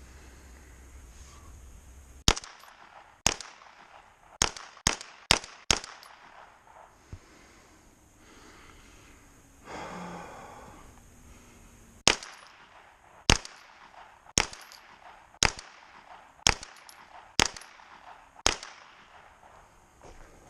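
9mm AR pistol firing single shots: six in quick succession, then after a pause seven more at about one a second.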